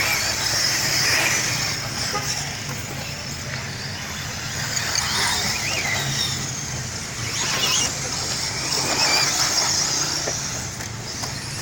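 Electric 4WD off-road RC buggies racing: the high-pitched whine of their electric motors and drivetrains rising and falling as they accelerate and slow.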